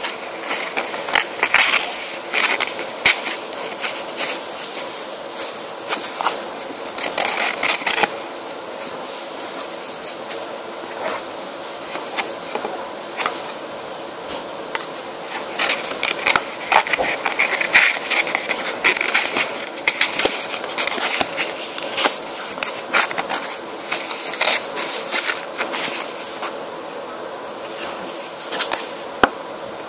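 Sheet of paper rustling, crinkling and being creased by hand in irregular clusters of sharp crackles, over a steady background hum.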